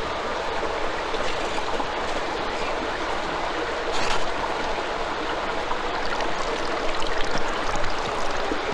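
Shallow stream running over rocks: a steady rush of water, with a brief louder splash about four seconds in as a dog is washed in it.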